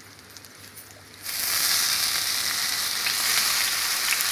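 Rum poured over hot pork ribs just out of the oven, hitting the hot baking dish and sizzling. Faint crackling at first, then a loud, steady hiss starts about a second in as the liquid lands.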